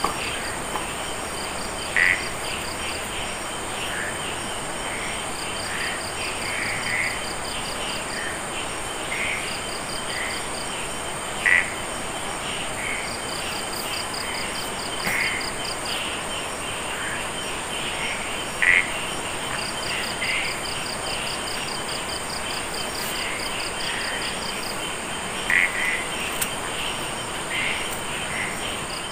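Chorus of frogs and insects: a steady high insect drone, with stretches of fast pulsed trills that start and stop, and frogs calling in short croaks every second or so. A few croaks stand out louder, about two seconds in, near the middle and near the end.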